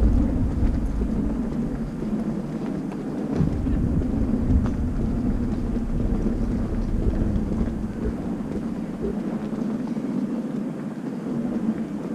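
City street noise: a steady low traffic hum, with a deeper rumble that eases off about eight seconds in.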